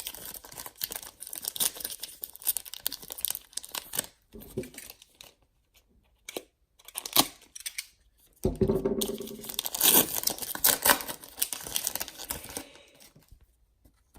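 Trading-card pack wrappers being torn open and crinkled, with handling of the cards. Bursts of rustling come with short quiet gaps between them.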